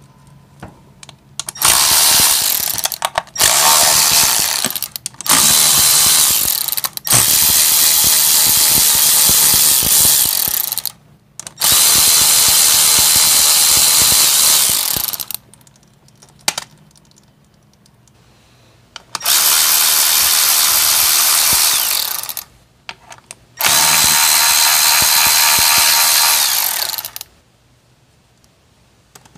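Power ratchet spinning out the clutch cover bolts of a 1982 Honda GL500 engine, in about seven runs of a few seconds each with short pauses between, some runs carrying a steady high motor whine.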